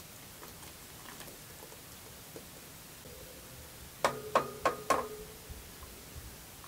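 Metal spatula striking the metal baking tray four times in quick succession as it cuts into a baked casserole, each clink ringing briefly. Faint light patter earlier from chopped green onion being sprinkled over the dish.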